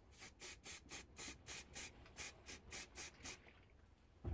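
Aerosol spray paint can sprayed in about a dozen short hissing bursts, roughly three a second, stopping about three and a half seconds in. A dull thump comes at the very end.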